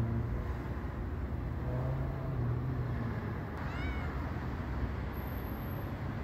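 A cat gives one short meow just past the middle, rising and falling in pitch, over a steady low hum.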